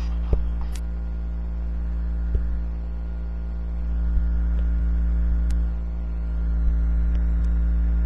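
Steady low electrical hum with a buzzing ladder of overtones, with a few light clicks scattered through it.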